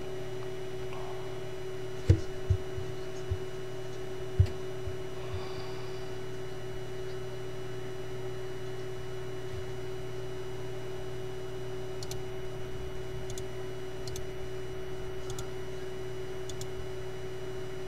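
Steady electrical hum with a constant hiss. A few dull thumps come about two to four seconds in, and faint light clicks follow near the end.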